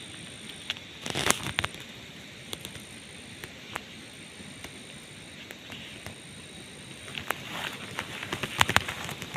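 Dry grass stems of a bird's nest rustling and crackling as they are handled close to the microphone, in a bout about a second in and another near the end.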